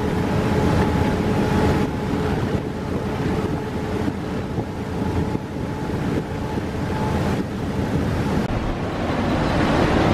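Steady running noise inside a diesel locomotive cab at speed: engine and wheels rumbling on the rails, with wind noise on the microphone.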